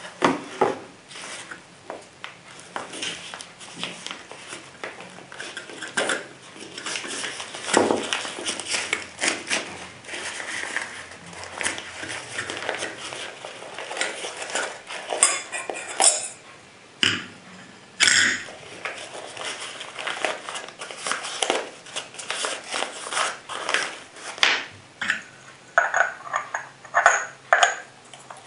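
Handling of a metal nesting wine goblet and its black fabric pouch: fabric rustling and many light clicks and knocks. Near the end come metal clinks with a faint ringing as the goblet's bowl and stem are handled.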